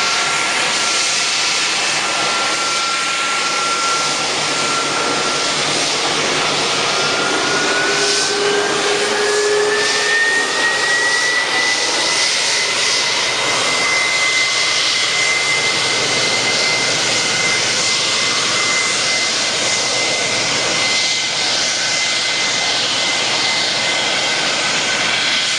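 Boeing 747's jet engines at taxi power: a steady rumble and hiss, with a thin whine that climbs in pitch from about seven to twelve seconds in and then holds.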